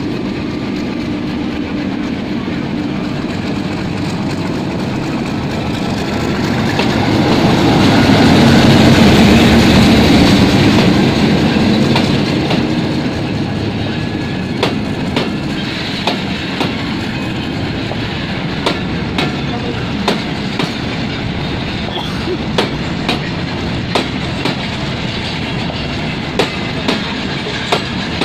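Freight train of empty BTO tank wagons rolling past, a steady rumble that swells loudest about eight to eleven seconds in. From about halfway on, the wheels clack sharply and repeatedly over the rail joints.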